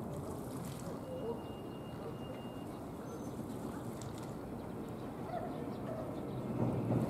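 Feral pigeons bathing in shallow water: small splashes and wing flicks in the water over a steady low rush of background noise.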